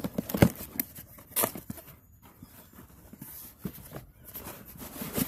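A package being opened by hand: irregular rustling, tearing and scraping of packaging, with a few sharper crackles and knocks.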